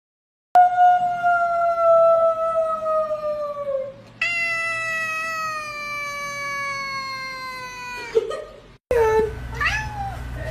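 A cat meowing in two long, drawn-out calls of three to four seconds each, the pitch sliding slowly down through each. After a break near the end come a few short meows that swoop up and down in pitch.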